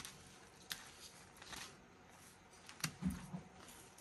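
Asian water monitor mouthing and working a thawed rat in its jaws: a few faint, sharp clicks and scuffs, with a soft low thud about three seconds in.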